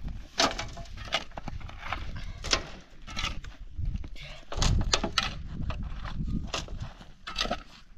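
Shovels scraping and digging into stony soil, with dirt and gravel thrown into a metal wheelbarrow: a run of sharp, irregular scrapes, clinks and rattles.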